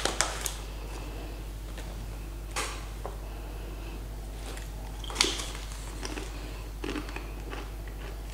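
Crinkle of a paper snack bag as a thin cheese cracker is taken out, then a few short crisp crunches of the cracker being bitten and chewed, the loudest about five seconds in. A steady low hum runs underneath.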